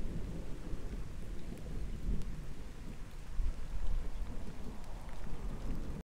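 Outdoor ambience: an uneven low rumble with a faint hiss over it, cutting off abruptly near the end.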